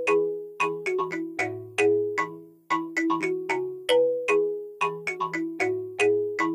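Background music: a repeating melody of short struck notes, each dying away quickly, over lower bass notes.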